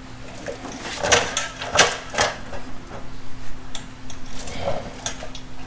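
Short clattering knocks and scraping handling noises, clustered about a second in and again near the end, over a steady low hum.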